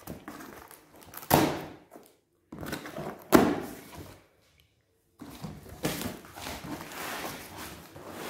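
Plastic packing straps around a cardboard box being cut with a knife: two sharp snaps about two seconds apart. Then steady rustling and scraping of cardboard as the box flaps are handled.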